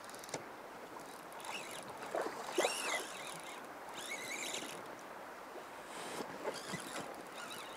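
River current flowing with a soft, steady rush; a few short chirps sound over it between about one and a half and four and a half seconds in.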